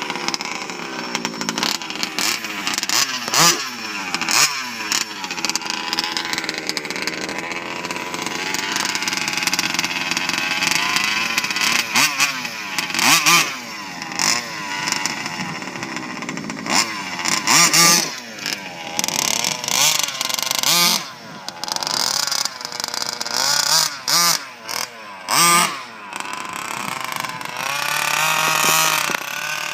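The small engine of a freshly rebuilt Baja running and being revved up and down over and over, its pitch rising and falling. Short loud rushes of noise break in several times in the second half.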